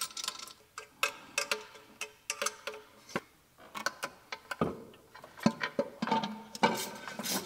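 Irregular light clicks and metallic clinks of an intake manifold and its fittings being set onto the engine and fastened, with faint background music.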